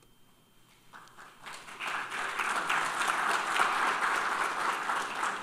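Audience applauding. The clapping starts about a second in, builds to full strength, and is still going at the end.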